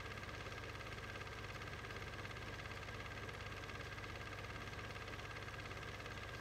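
A steady, unchanging hum with a buzzing edge, electrical or transfer noise rather than the racing cars, since Standard 8 home-movie film carries no soundtrack.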